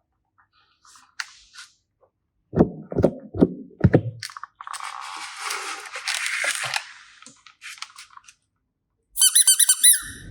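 Slime being handled: a few loud, low squelching pops, then a couple of seconds of crackling, rustling noise. Near the end comes a short burst of rapid, high-pitched, chirping squeaks.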